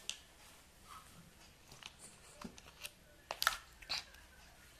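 Small plastic parts of a take-apart toy fire truck being handled: scattered light clicks and knocks, the loudest a little over three seconds in.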